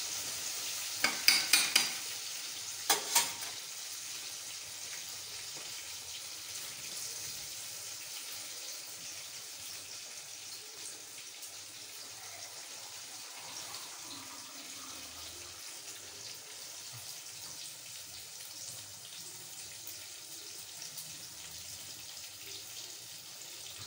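Hot oil sizzling in a deep-fry pan, a steady crackling hiss that slowly fades, with a quick run of sharp clicks about a second in and two more at about three seconds.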